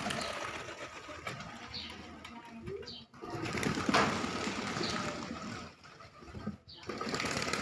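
Domestic pigeons feeding, with a dense patter of pecking clicks and some cooing. The patter breaks off briefly twice.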